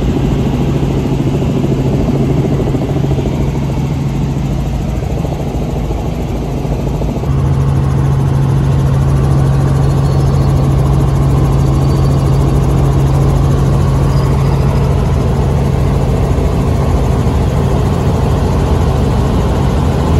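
Helicopter in flight heard from inside the cabin: a steady engine and rotor drone with a strong low hum. It gets louder about seven seconds in.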